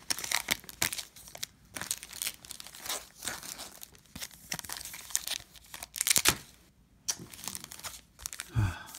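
Foil trading-card pack wrappers crinkling and rustling in irregular bursts as the packs and cards are handled, loudest about six seconds in.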